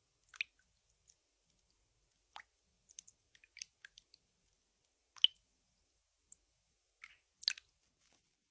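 Ear-cleaning tools working close against the ear, heard as faint, irregular soft clicks and crackles, with the sharpest clicks about five seconds in and again near the end.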